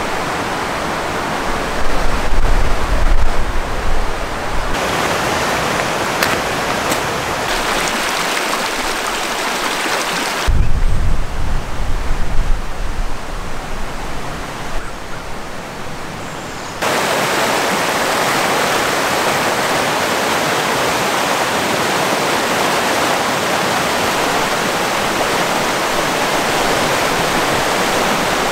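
Rushing mountain river: a steady rush of water whose level and tone jump abruptly a few times. Two stretches of low rumble come about two seconds in and again around ten seconds in.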